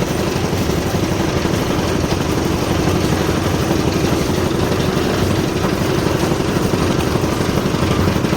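Engine of a concrete mixer and lift machine running steadily at a constant speed, with a fast, even beat and a steady hum.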